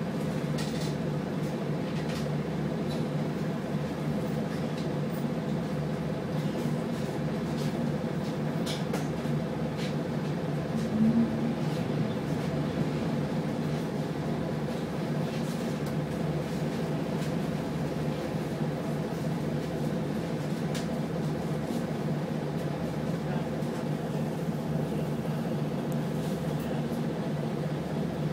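Scania bus diesel engine idling, heard inside the saloon as a steady low hum, with a few faint clicks and one short louder low tone about eleven seconds in.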